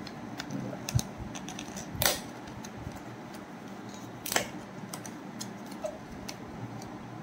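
Small cardboard box being opened by hand: light clicks and taps from the flaps and card tabs, with two louder short scrapes of card sliding against card about two and four and a half seconds in.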